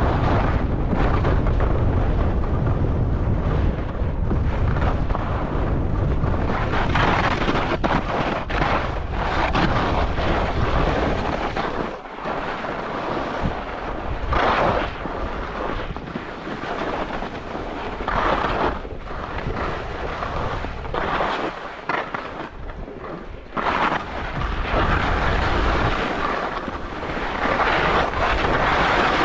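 Skis carving and scraping over firm, chopped piste snow, with a surge of edge scrape at each turn every few seconds, under wind rushing over the action camera's microphone. The wind rumble is heavy through the first half and eases after about twelve seconds.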